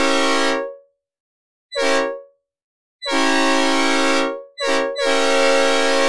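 Synthesizer recreation of a Nathan P5A 'Old Cast' five-chime locomotive air horn sounding its chord in separate blasts. The tail of a long blast is followed by a short one about 2 s in, a long one, another short one and a final long blast that runs on past the end.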